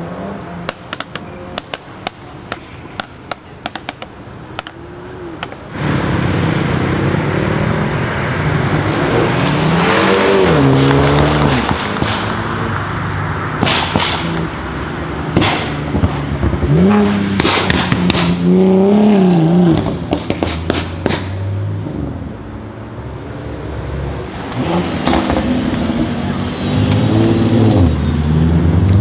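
Single-turbo BMW M3 G81 Touring's engine popping and crackling over a low running note, then from about six seconds in revving hard and loud in repeated rising and falling sweeps, with sharp pops between, and climbing again near the end.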